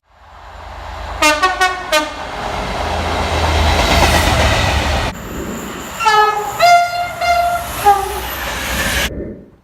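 Train horn sounding four quick short blasts about a second in over the rumble of a passing train, which swells and then cuts off about five seconds in. A second train horn then sounds a run of blasts that switch between a lower and a higher note.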